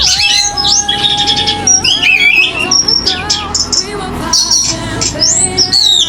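Songbird singing a loud, varied song: whistled notes sliding up and down, bursts of rapid trills, and one long held note near the start.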